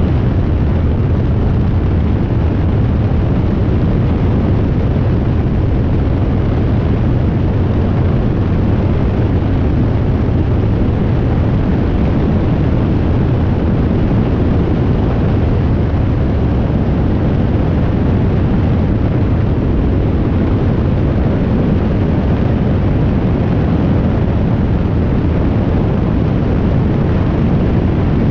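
Light high-wing aircraft in flight: a steady engine drone buried in heavy wind rush over a wing-mounted camera, a deep, unbroken roar.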